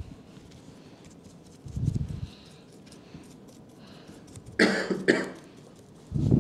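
A person coughs twice in quick succession, about two-thirds of the way in, with a couple of dull low thumps before and after.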